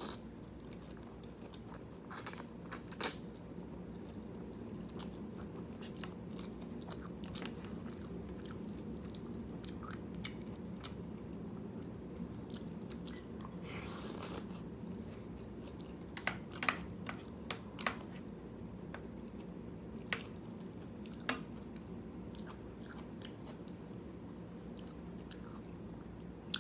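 Close-up chewing and biting of black bean noodles (jjajangmyeon): scattered wet mouth clicks and one longer noisy sound about halfway through, over a steady low noise of thunderstorm rain.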